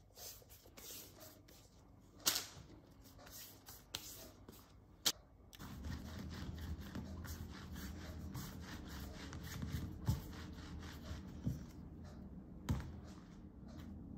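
Hands handling bread dough on a granite worktop, with two sharp taps. About five and a half seconds in, a wooden rolling pin starts rolling over the granite, making a steady low rubbing sound with a few knocks.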